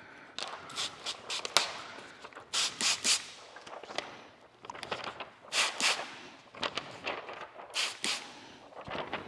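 Hand spray bottle squirting PPF slip solution onto car paint: a series of short hissing sprays, often two or three in quick succession, with small clicks of handling between them.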